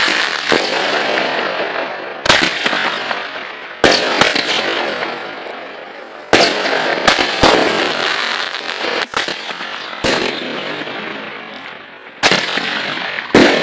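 Jorge "Mars" 16-shot, 19 mm firework battery firing about ten shots at uneven intervals. Each shot is a sharp bang that trails off into a crackling hiss lasting a second or two, and some shots come in quick pairs.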